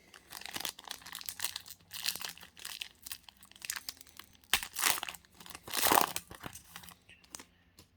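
Panini UFC Chronicles trading card pack wrapper being torn open and crinkled by hand: a run of irregular crackling rustles, loudest about five to six seconds in.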